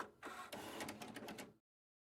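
Printer working: its paper-feed mechanism running with a quick series of clicks and knocks, then cutting off abruptly.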